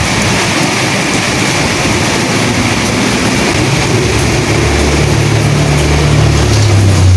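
Steady rain and wind noise, with a deep low rumble swelling from about halfway through.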